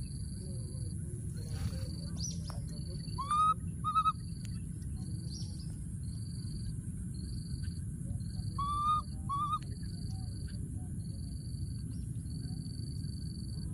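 Baby macaque calling: two pairs of short, rising squeaky calls, one pair a few seconds in and another just past the middle.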